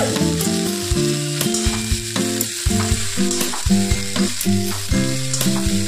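Broccoli florets sizzling in hot oil in a metal kadhai as a slotted metal spatula stirs them, with the spatula clicking against the pan several times a second.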